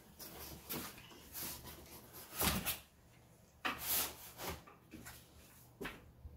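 Packing rustling and scraping as a crib side panel is lifted out of its foam and plastic wrapping: a few short rustles and scrapes, the loudest about halfway through.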